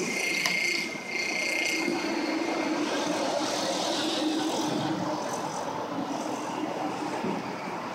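A single sharp pop about half a second in, a baseball pitch landing in the catcher's leather mitt, over steady outdoor background noise. A thin, high whistling tone sounds through the first couple of seconds.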